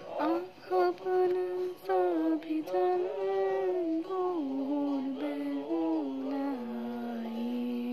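Soundtrack music: a solo voice sings a slow, ornamented melody that steps downward and ends on a long held low note near the end.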